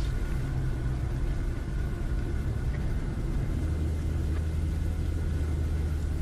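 Steady low rumble of a car driving, heard from inside the cabin. The low hum deepens and strengthens about halfway through.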